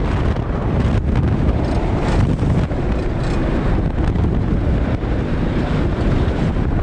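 Loud, steady wind rushing and buffeting over the ride camera's microphone as a steel roller coaster train runs through its track at speed, with the train's low rumble beneath.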